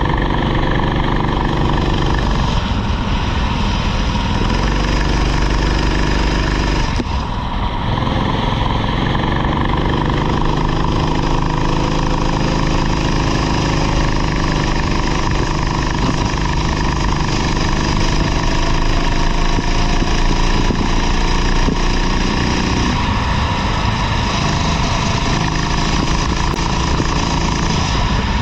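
Rental kart engine running hard, its pitch falling away and climbing again a few times as the kart slows for corners and accelerates out of them.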